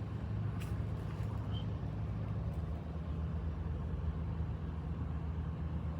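A steady low hum of a running engine or motor, with a couple of faint ticks about half a second and two and a half seconds in.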